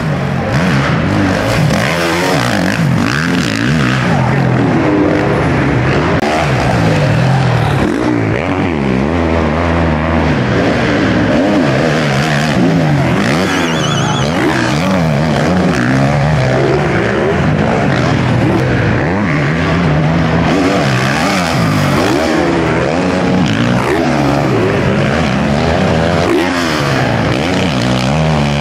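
Motocross bikes of the 500 cc class racing, their engines revving hard. The pitch rises and falls again and again as the riders open and close the throttle through jumps and corners, with several engines overlapping.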